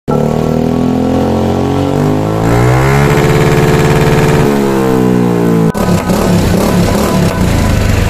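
Suzuki Burgman Street 125 scooter's single-cylinder engine revved through an aftermarket Akrapovic slip-on exhaust. The pitch climbs over the first three seconds, holds high briefly, then falls away, and it settles to a rougher, lower idle about six seconds in.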